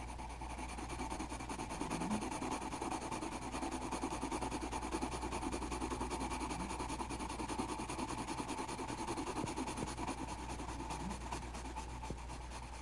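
Grey colored pencil shading on drawing-pad paper: quick back-and-forth rubbing strokes that grow louder about a second in and ease off near the end.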